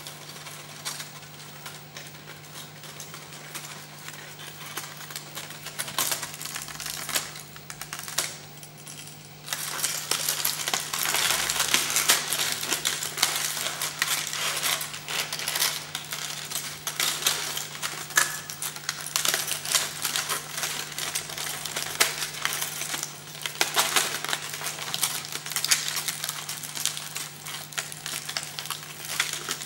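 Aluminium foil crinkling and crackling as hands squeeze and reshape it, softer for a few seconds and then louder from about ten seconds in, over a faint steady hum.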